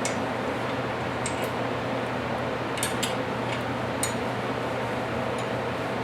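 A handful of light, scattered metallic clinks and taps from small parts and tools being handled, over a steady background hum.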